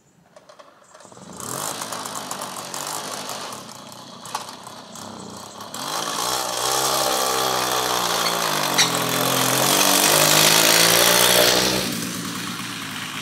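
Two-stroke Motobécane Mobylette moped engine coming to life about a second in, then running and revving as the moped rides off, its note rising and falling with the throttle. It is loudest shortly before the end, then falls away.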